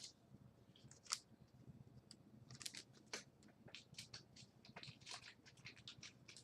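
Faint, scattered rustles and light clicks of trading cards being handled and sorted.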